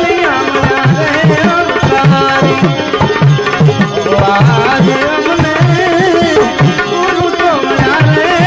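Gujarati devotional bhajan music, with tabla keeping a steady beat under a wavering, gliding melody line.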